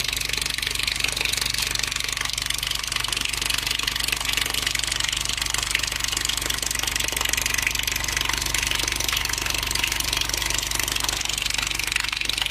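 Subwoofer playing a steady very low test tone of about 24 Hz, giving a constant low buzzing drone as its cone shakes the stream of water from a hose taped against it. The falling water splashes with a steady hiss over the drone.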